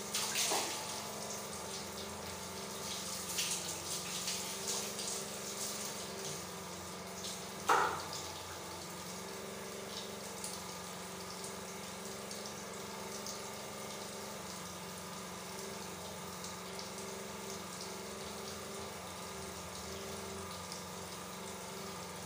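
Water running in a tiled bathroom, splashing unevenly for the first few seconds and then running steadily over a low, steady hum. One short, sharp knock or squeak about eight seconds in is the loudest sound.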